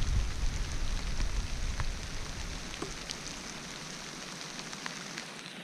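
Steady rain falling, an even hiss with scattered sharp drop ticks. A low wind rumble on the microphone fills the first few seconds and dies away about halfway through.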